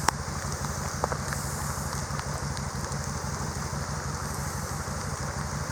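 Steady rain pattering, a dense run of fine drop ticks, with a few sharper ticks near the start and about a second in.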